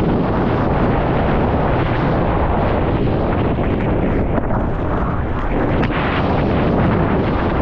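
Loud, steady rushing roar of wind on a surfer's POV camera microphone mixed with the noise of big surf, with no let-up.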